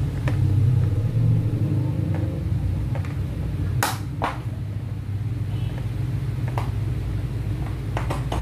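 A few sharp plastic clicks and knocks as the rear wheel of a ride-on toy jeep is handled and pushed onto its axle, the loudest two about four seconds in, over a steady low rumble.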